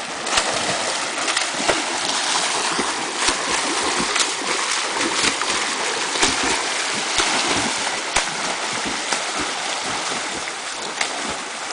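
Two swimmers racing freestyle through a pool, arms and legs slapping the water: a constant churning splash with sharper irregular slaps standing out.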